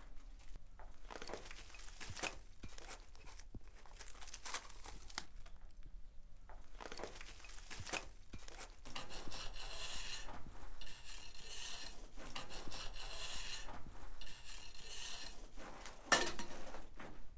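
Footsteps and shuffling through burnt rubble and ash, with debris crunching, scraping and clinking underfoot. It grows busier about halfway through, with a sharper knock near the end.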